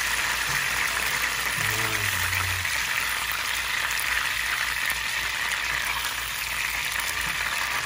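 Melted butter and lemon juice sizzling steadily in a nonstick frying pan, stirred with a spatula.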